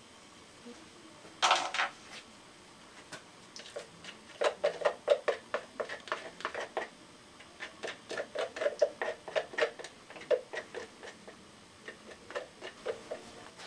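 West System epoxy being stirred by hand in a small plastic mixing cup: a stick knocks and scrapes against the cup in quick, irregular clicks, about three or four a second, after a single short scrape about a second and a half in.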